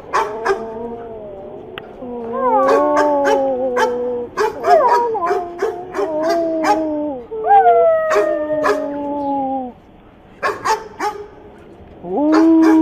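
Dog howling: a series of long drawn-out howls, each a second or more and sagging slightly in pitch, with short sharp yips or clicks between them and a brief lull near the end.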